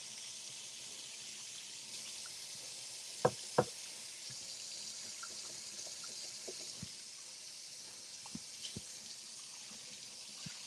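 Kitchen tap running steadily into the sink as hands are washed with soap, with two sharp knocks about three seconds in and a few light clicks later.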